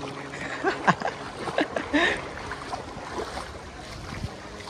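River water rushing steadily, with a few short voice sounds about one and two seconds in.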